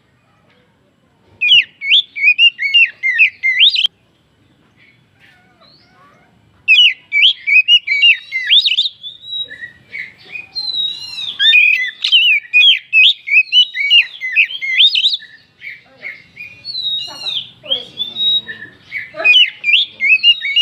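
Oriental magpie-robin (kacer) singing: rapid, varied whistles and chirps. A burst of about two and a half seconds comes first, then after a pause the song runs on almost without break from about seven seconds in.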